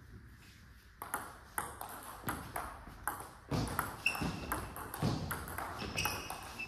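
Table tennis rally: the celluloid-type ball clicking back and forth off the bats and the table, starting about a second in and coming faster later. A few short high squeaks are heard among the clicks.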